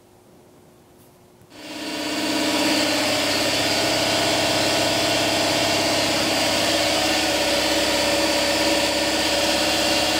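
Air compressor switching on about a second and a half in, coming up to speed within half a second, then running loudly and steadily.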